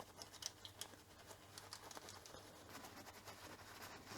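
Faint handling noises: light scratching and scattered small ticks from working on the calculator's opened contact board.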